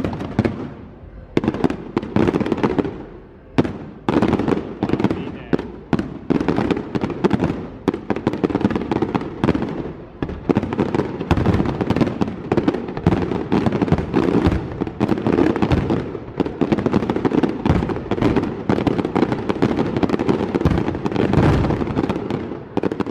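Fireworks display: a dense, continuous barrage of overlapping bangs and crackles, thickening into a near-unbroken stream after about ten seconds.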